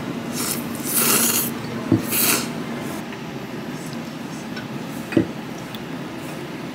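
Ramen noodles slurped in three quick noisy pulls in the first two and a half seconds, with a short knock of a utensil about two seconds in and another a little after five seconds, over steady low background noise.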